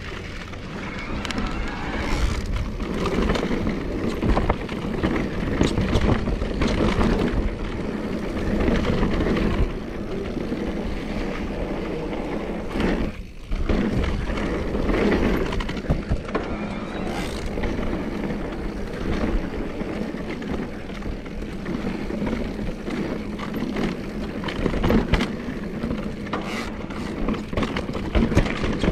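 Electric mountain bike climbing a dirt trail: tyres rolling over dirt and rock, with frequent rattles and clicks over a steady low rumble, and a brief lull about thirteen seconds in.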